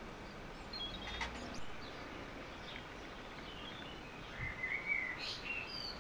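Birds chirping faintly over steady outdoor background noise, with a single short click about a second in.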